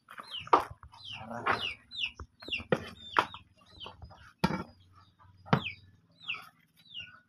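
Chickens clucking, with repeated short high chirps that drop in pitch, about two a second. Several sharp knocks come in between, about four in all, from a knife chopping through a large fish onto the cutting board.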